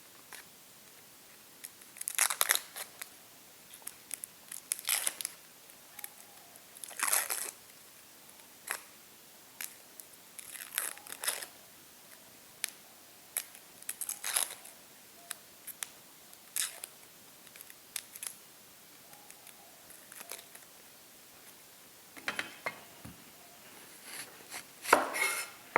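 Dry, papery onion skin being peeled and torn off an onion, in irregular crackling, rustling bursts. Near the end come several sharper knocks with a brief ring.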